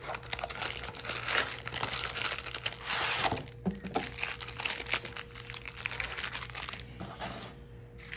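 Crinkling of the shiny wrappers of Topps trading-card packs as they are slid out of their cardboard box and handled, with rustling and scraping of the box's cardboard. The crackling is irregular and densest about three seconds in.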